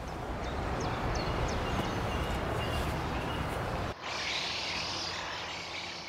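Steady outdoor background noise with a deep rumble, like distant traffic, and a few faint bird chirps. About four seconds in it cuts abruptly to a thinner, high hissing background.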